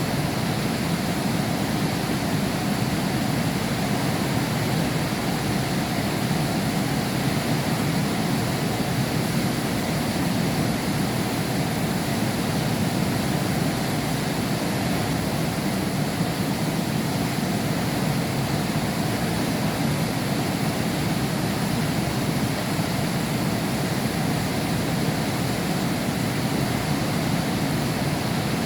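Heavy rain falling steadily, a dense even hiss and rumble with no distinct drops or thunder, heard from behind a window pane.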